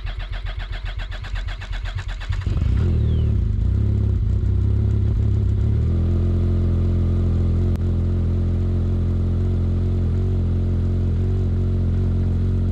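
Arctic Cat XF7000 snowmobile's four-stroke engine on a cold start: the electric starter cranks it in a rapid, even rhythm, it catches about two seconds in, and it settles into a steady idle. The slow start is one the owner puts down to gas of unknown age.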